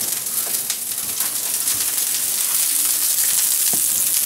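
Hot oil sizzling steadily in a pan on the stove, with scattered small crackles.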